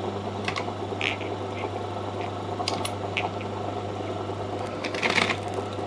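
A steady low electric hum, with short soft rustles and light clicks of silk cloth being pinched into pleats under a sewing machine's presser foot.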